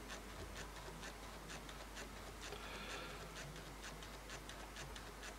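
Faint, quick scratchy strokes of a small paintbrush working gloss varnish over a plastic scale-model cockpit seat.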